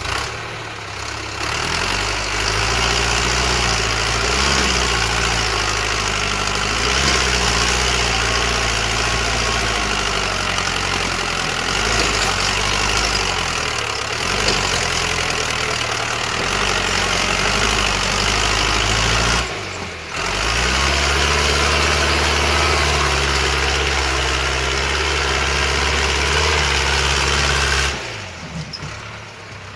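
An engine or motor running steadily with a strong hiss, its low hum shifting pitch in steps. It dips briefly about twenty seconds in and again near the end.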